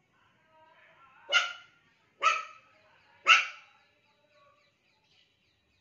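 Pomeranian puppy barking three short, sharp barks about a second apart.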